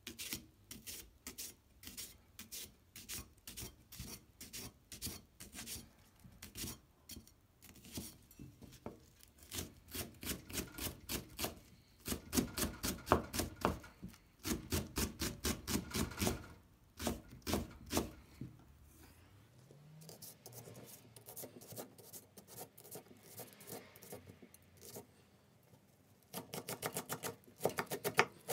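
A petty knife chopping a Japanese long green onion (naganegi) on a wooden cutting board, each stroke a sharp tap on the board. It goes at about two strokes a second at first, then comes quicker and louder in the middle. After a quieter stretch it turns to rapid chopping near the end.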